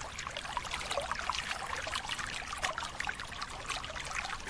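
Water splashing and trickling in irregular small splashes as men wading in shallow river water work a seine net.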